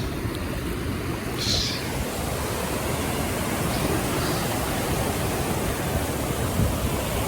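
Ocean surf washing onto the beach: a steady rush of noise.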